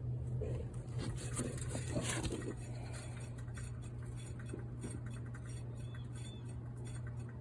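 Hand-spun rear wheel and hub of a jacked-up 2011 Kia Sorento coasting, with some handling clatter in the first two seconds and then a run of faint, evenly repeating ticks over a steady low hum. The wheel is being free-spun to listen for a failing rear wheel bearing, and the owner is "definitely hearing something."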